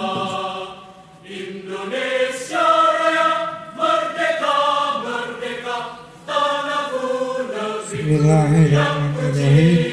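Several voices singing together slowly, holding long notes with short breaks between phrases; a low male voice holding a note comes in strongly about eight seconds in.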